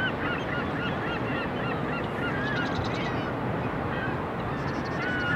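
A flock of birds calling: many short, quick, pitch-bending calls overlapping one another over a steady wash of background noise.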